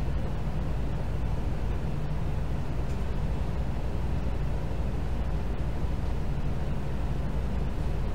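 Steady low rumbling hum with hiss, an even background noise with no distinct events.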